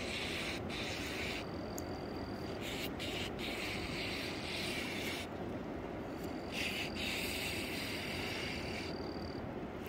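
A high-pitched buzzing animal chorus, typical of calling frogs or insects, that starts and stops in spells of one to three seconds, at times with a thin steady whistle above it, over a low steady rush.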